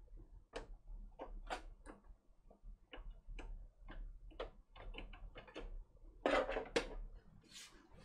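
Faint, scattered clicks and ticks of plastic cable combs and braided PSU cable extensions being handled and routed into a PC case, with a brief louder rustle a little past six seconds in.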